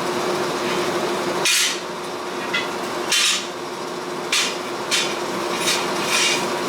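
Hammer blows on hot sword steel while forging the tang: about seven strikes at an uneven pace of roughly one a second, over the steady noise of the burning forge.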